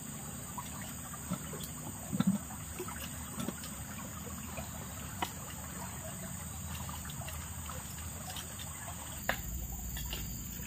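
Forest insects ringing steadily in a continuous high, metallic-sounding drone, like iron striking iron, with scattered faint clicks and crackles; the low rumble and the clicks pick up near the end.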